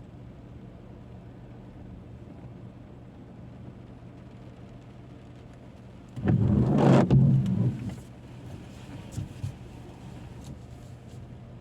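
Steady hum of a car driving on the road. About six seconds in comes a loud rumble lasting about two seconds, then two short, smaller bumps.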